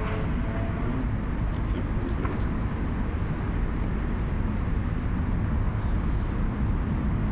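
Steady outdoor background of distant road traffic, a low rumble with a hiss over it, picked up by a cheap electret condenser microphone shielded from the wind by a balloon. A few faint high ticks come about one and a half to two and a half seconds in.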